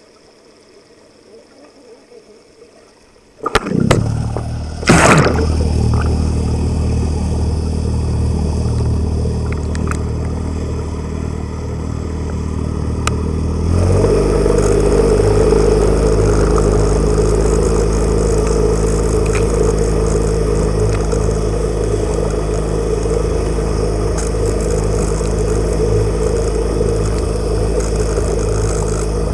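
Boat motor heard underwater through the hull and water: after a few seconds of faint water noise it comes on suddenly with a steady low hum. About fourteen seconds in it speeds up and gets louder, with a stronger droning as the boat pulls away and tows the camera.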